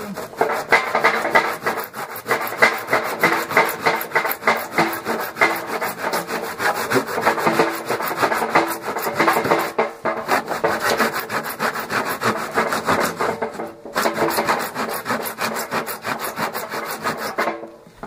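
Fine-toothed hand saw cutting through the plastic tub of an Indesit washing machine in quick, even back-and-forth strokes. It pauses briefly twice, about ten and fourteen seconds in, and stops shortly before the end.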